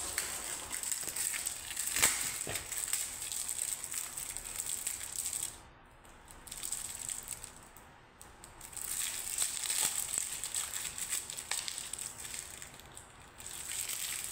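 Crinkling and clicking of small plastic items handled in the hands, with a sharp click about two seconds in and brief lulls around six and eight seconds.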